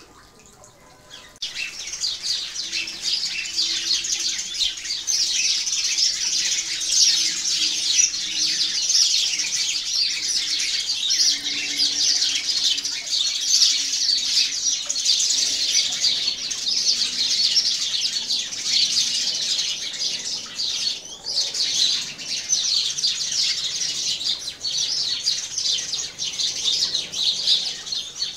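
Sparrows chirping, many overlapping chirps from a busy flock, starting suddenly about a second and a half in.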